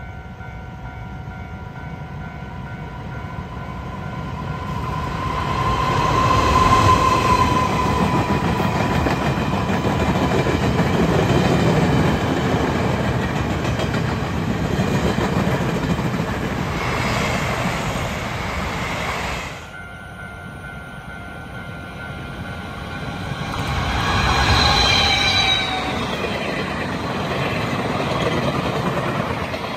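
Level-crossing warning signal sounding steady tones as a Taiwan Railways passenger train comes up, then the loud rumble and clatter of the train's cars passing at speed, with a brief high squeal. After a sudden cut, the crossing signal sounds again and a second passenger train rushes past with high squealing tones.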